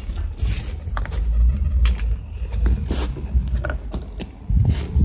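Uneven low rumble from a phone microphone being swung about, with scattered short clicks and light scrapes.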